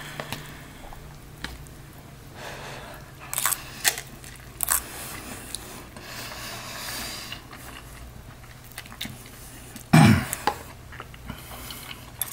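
A person eating instant ramen noodles: chewing and slurping, with several short utensil clicks and scrapes against the bowl and one louder knock about ten seconds in.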